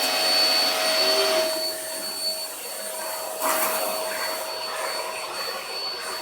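Vacuum cleaner running with a steady whine, used to groom a cat's fur. Its rushing air is strongest for about the first second and a half, then drops, with a brief louder rush about three and a half seconds in.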